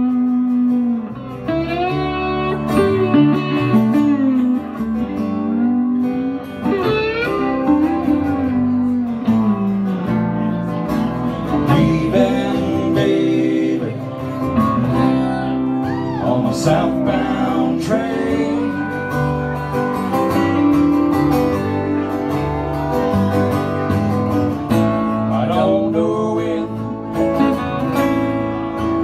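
Live country band playing: electric guitars, strummed acoustic guitar and pedal steel guitar, with the steel's sliding notes gliding up and down.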